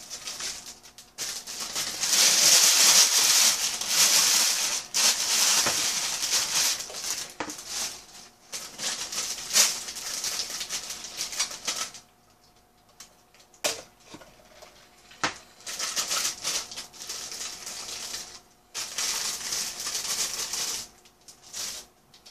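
Plastic carrier bag and paper takeout packaging rustling and crinkling as they are handled, in long bursts with quieter gaps, loudest a few seconds in, with a few sharp clicks in the middle.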